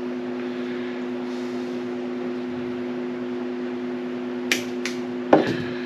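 Steady low hum, with two sharp clicks of wire cutters trimming wire ends about four and a half seconds in, followed by a louder knock near the end.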